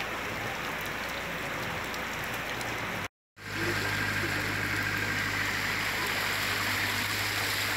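Heavy rain and rushing floodwater on a street, with vehicles splashing through standing water. About three seconds in the sound cuts out for a moment, then the water noise resumes with a steady low hum underneath.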